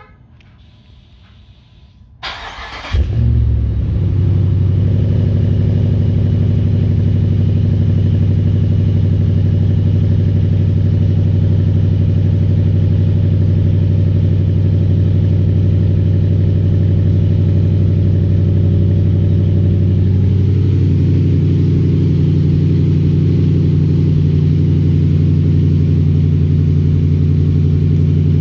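Jeep Grand Cherokee SRT8's Hemi V8, fitted with a Comp Cams 273 XFI camshaft and B&B exhaust, cranks briefly about two seconds in, catches with a flare of revs, then settles into a steady idle heard at the tailpipes. The idle note shifts slightly about twenty seconds in.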